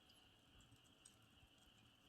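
Very faint campfire crackling: scattered small pops and ticks from burning wood, over a steady high-pitched chirr.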